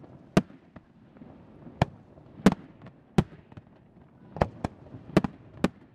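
Aerial fireworks shells launching and bursting: a series of about nine sharp bangs at irregular intervals, some in quick pairs.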